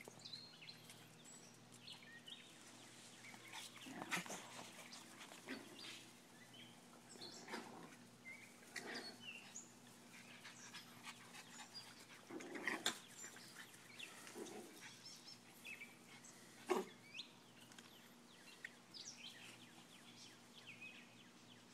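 A Bugg puppy and a Boston terrier playing together, with a few brief, faint dog sounds scattered through, the loudest near the middle and about three-quarters of the way in.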